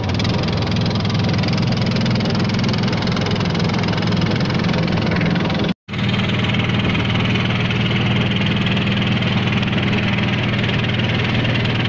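A small boat's motor running steadily under way, a low engine drone over the rush of water along the hull. It cuts out for a split second about halfway, then carries on.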